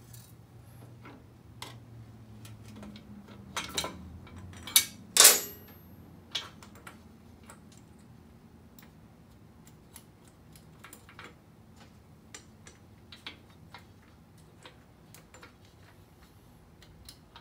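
Irregular clicks and clinks of hand work with metal parts and tools, with a few louder knocks about four to five seconds in.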